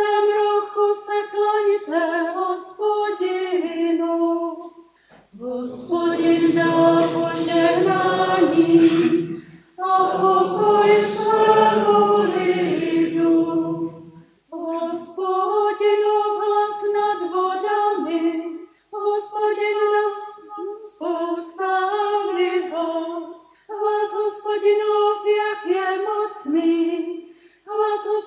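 Responsorial psalm sung in Czech: a solo female cantor sings a verse, then about five seconds in a group of voices, the congregation, sings the refrain together for about nine seconds, after which the cantor sings the next verse alone in short phrases.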